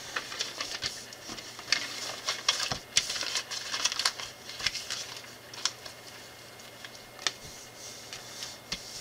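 Small plastic LEGO pieces clicking and tapping as they are handled and pressed together on a wooden table: scattered, irregular sharp clicks, with some light rustling of paper instructions and plastic bags.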